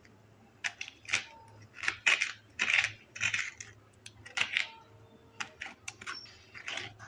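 A spoon scraping and scooping the flesh out of the sides of a pineapple, in a run of short scraping strokes with sharp clicks between them.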